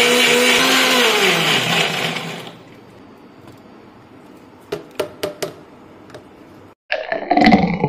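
Electric mixer grinder with a stainless steel jar running at full speed, then switched off about a second in, its motor whine falling in pitch as it spins down over the next second and a half. A few sharp clicks follow around five seconds in as the jar's lid is taken off, and a separate, louder sound starts near the end.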